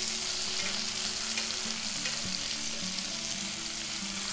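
Cod fillets sizzling steadily in hot oil in a frying pan, with light clinks and scrapes of a fork turning them.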